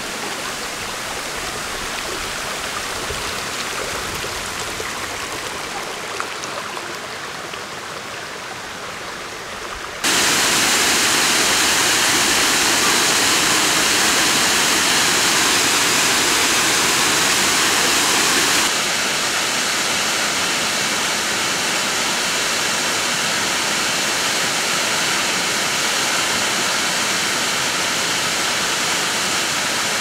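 Waterfall on a mountain stream: water pouring and splashing in a steady rush. It jumps abruptly louder about a third of the way in and drops back a little at about two-thirds.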